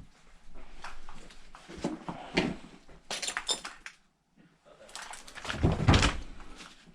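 Irregular knocks, clicks and rustling of household debris being stepped on and handled, with the loudest clatter of thuds near six seconds.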